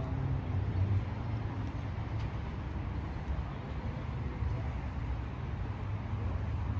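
Steady low vehicle rumble with a faint hiss above it and no distinct events.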